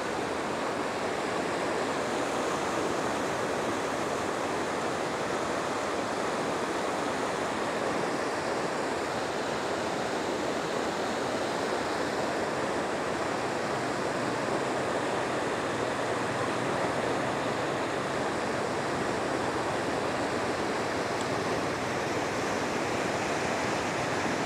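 Steady, unbroken rush of flowing floodwater.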